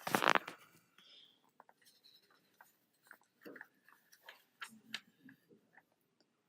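Hands handling small plastic hardware and cables: a short, loud rustling rasp at the very start, then scattered light clicks and small knocks.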